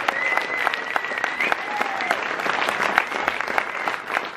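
Audience applauding, a dense patter of many hands clapping, with a thin steady high tone held over it for the first second and a half; the clapping starts to thin out near the end.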